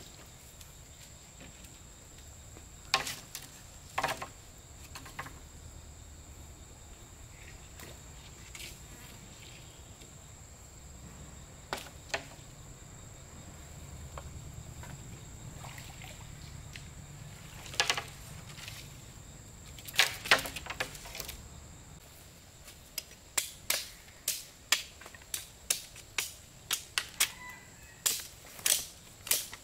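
Repeated chopping blows from a hand tool. A few scattered knocks come first, then from about three-quarters of the way in a steady run of strikes about two a second. A constant high-pitched insect drone sounds behind them.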